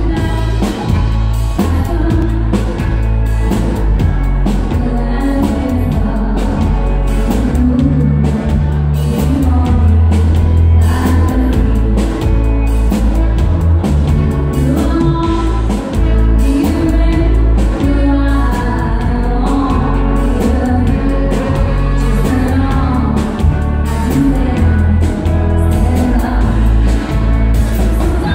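Live band playing through a PA with a woman singing lead into a handheld microphone, over drum kit, bass, guitar and keyboard with a steady beat.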